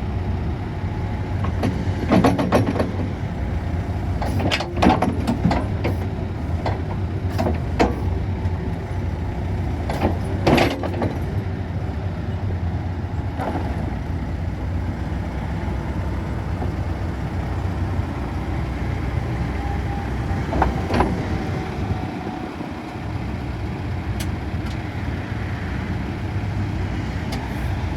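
Case 580SN backhoe's diesel engine running at a steady low drone, with a number of sharp metallic clanks now and then.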